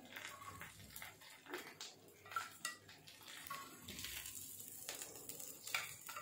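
Metal tongs clinking and scraping against a flat tawa griddle and a ceramic plate as cooked chicken pieces are lifted off and set down, a scattering of faint short clicks.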